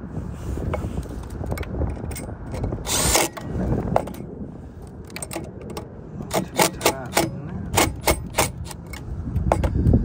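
Milwaukee cordless driver running a screw in with a short burst about three seconds in, then a run of sharp clicks and knocks from the driver and bit on the metal fan-motor mount in the second half.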